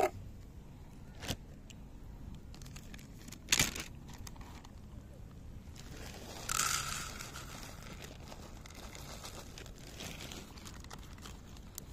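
Plastic zip bag of dry cat kibble crinkling, with a few sharp clicks and rattles, the loudest about three and a half seconds in. About six and a half seconds in, a rush of about a second as kibble is poured into a plastic dish.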